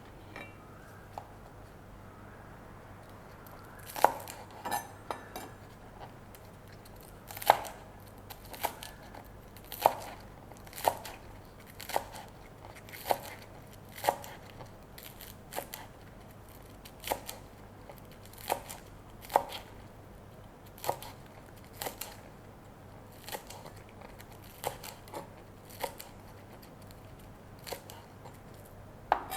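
Knife chopping green onion on a cutting board: single crisp cuts at an unhurried pace of about one a second, starting about four seconds in.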